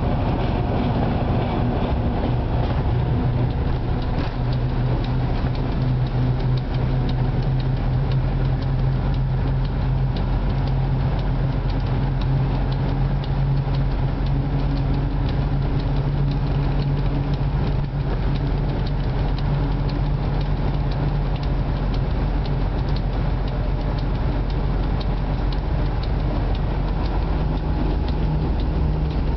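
Diesel engine of a 2M62 locomotive running steadily, heard from inside its cab while the train is moving, with wheel and rail noise underneath. The engine note rises slightly near the end.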